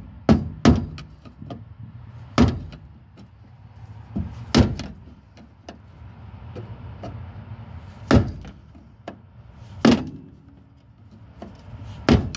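Hammer blows on a flathead screwdriver set against a fuel pump's locking ring, knocking the ring round to loosen it. About seven sharp strikes come at irregular gaps of one to four seconds, with lighter taps in between.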